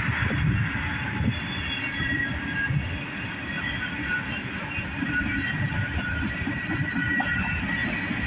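Freight train tank cars rolling past, a steady rumble of steel wheels on rail with irregular knocks. Short, thin, high-pitched wheel squeals come and go over it.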